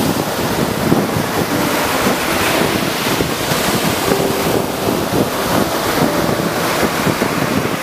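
Ocean surf washing onto a sandy beach: a steady, loud rushing of breaking waves.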